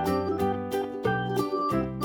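Light, bouncy background music: a melody of short plucked or keyed notes over a steady beat.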